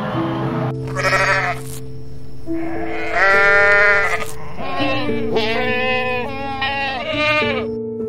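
Goats bleating about four times, with wavering, quavering calls; the loudest comes near the middle. Soft piano music with sustained notes plays underneath.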